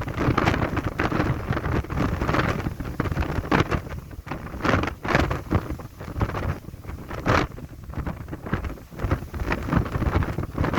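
Strong gusty wind buffeting the microphone, a rough rumbling rush broken by frequent irregular blasts.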